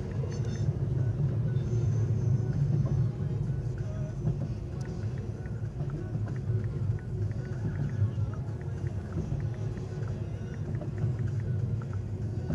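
Intermodal freight train rolling through a grade crossing at low speed, heard from inside a stopped car: a steady low rumble with scattered clicks of wheels over the rails.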